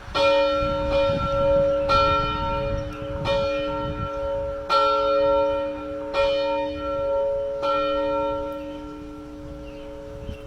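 A single church bell ringing, struck six times about every second and a half, its hum dying away over the last few seconds.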